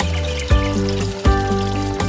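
Background music: sustained chords over a deep bass, with a new chord struck about every three quarters of a second.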